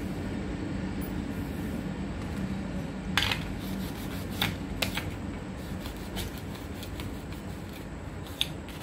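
A cloth rubbing over a round metal plate, with a few sharp clicks from about three seconds in as a small metal piece is handled and set down on it, over a steady low hum.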